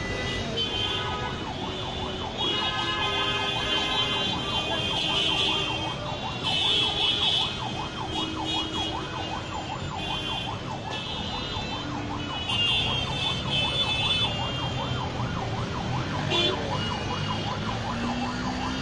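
A vehicle siren wailing in a fast, wavering warble over street traffic, joined several times by louder, higher tones.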